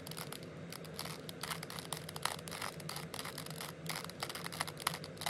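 A 3x3 Rubik's cube being turned rapidly by hand: a quick, irregular run of light plastic clicks and clacks as the faces snap round, repeating the right-hand 'righty' algorithm over and over.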